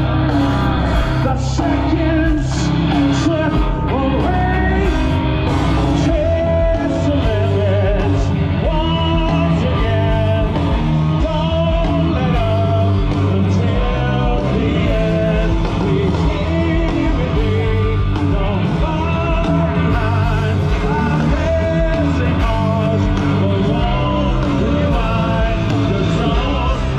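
Live rock band with a singer, played loud through a festival PA and heard from within the crowd in front of the stage.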